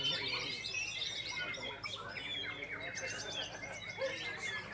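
White-rumped shamas singing: rapid, overlapping whistles and trills from several birds at once.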